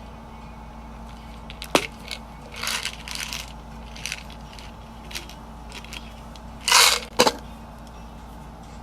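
A few sharp clicks and short rustling bursts, like things being handled, over a steady faint background hum; the loudest rustle comes about two thirds in, followed at once by a click.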